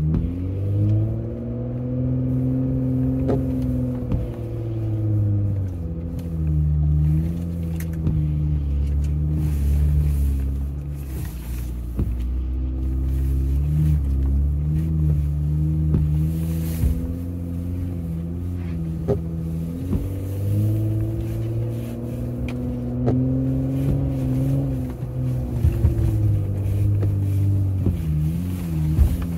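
Jeep Gladiator's engine pulling at low speed up a rocky off-road trail, heard from inside the cab. Its pitch climbs and drops a few times as the throttle is worked, with a few light knocks.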